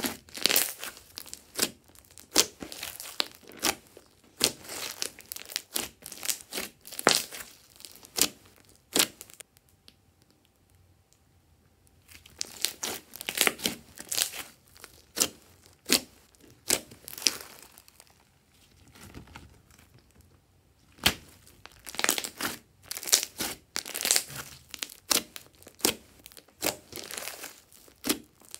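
Hands squeezing and kneading glossy slime. It makes a run of quick wet pops, squelches and crackles as trapped air bursts, broken by two short pauses about a third and two-thirds of the way through.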